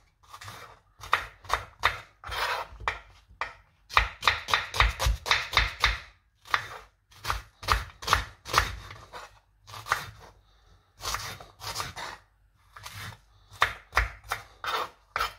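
Chef's knife dicing a white onion on a wooden cutting board: sharp knife strokes knocking through onion into the board in irregular runs, quickest about four to six seconds in, with short pauses between runs.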